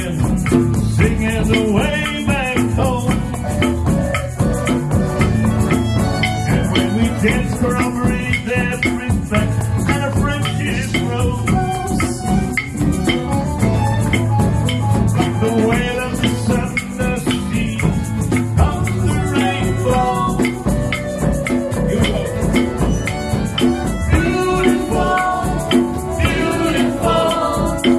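Live music with rattling shaker-type percussion over pitched melodic parts and a steady low bass line, playing continuously.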